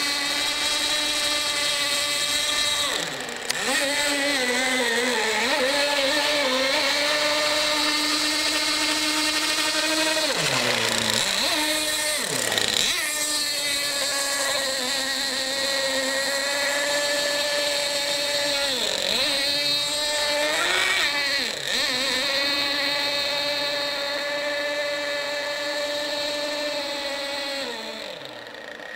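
RC speedboat's motor running at a steady high whine. Its pitch drops briefly and climbs back several times as the throttle is eased off and reapplied.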